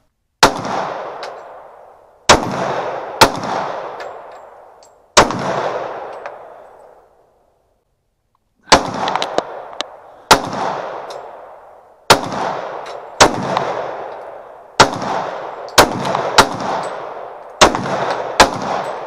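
Smith & Wesson .40 caliber semi-automatic pistol firing about thirteen single shots, one to two seconds apart, each followed by a long echo; after the first four there is a pause of a few seconds before firing resumes.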